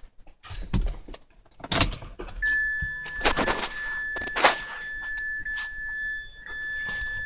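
Key clicking in the ignition of a 2004 Mazda6, then from about two and a half seconds in the dashboard warning chime sounds as one steady high beep, with a few more knocks from handling the key.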